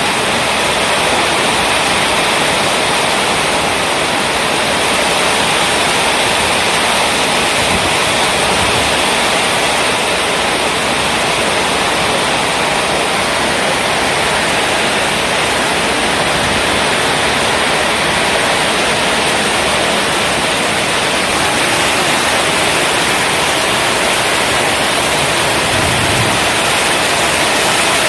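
Heavy tropical downpour on corrugated metal roofs and a flooded street: a loud, steady hiss of rain.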